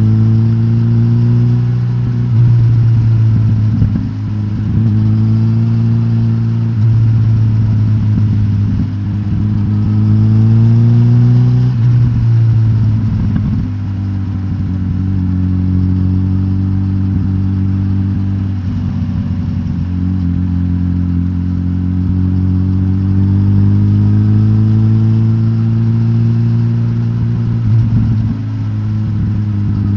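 Suzuki GSX-S1000GT inline-four engine running through its decatted stock exhaust. The pitch climbs slowly under throttle and drops back several times, about every few seconds.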